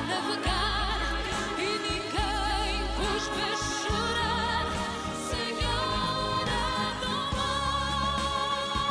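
Music: a woman's soprano voice singing with vibrato over instrumental accompaniment with a deep bass, in a Portuguese ballad of traditional style.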